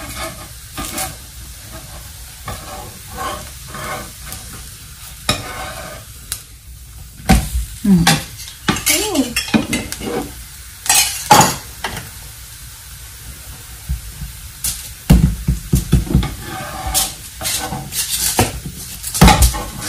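Avocado talipatti flatbread frying on a hot tawa with a steady sizzle, while a metal spatula scrapes and taps against the pan in irregular sharp strokes.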